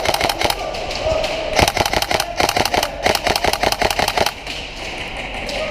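Airsoft electric rifle (Tokyo Marui SCAR-H) firing full-auto, a fast rattle of shots: a short burst at the start, then a longer burst from about a second and a half in to about four seconds in.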